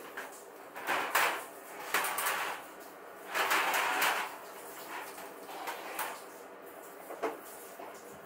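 A glass sliding door rolled open along its track, then louvred shutters pushed open, in a few short scraping, rolling stretches with latch and hinge clicks and knocks between them.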